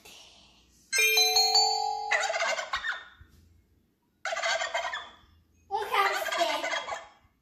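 A short bell-like chime of several ringing tones, then a recorded animal call heard three times in loud, warbling bursts.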